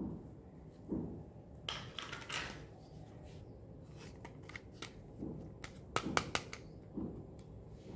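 Small plastic toy pieces handled: light clicks and taps, a short scraping rustle about two seconds in, and a quick run of sharp plastic clicks about six seconds in as a pink toy stove top is picked up and turned in the hands.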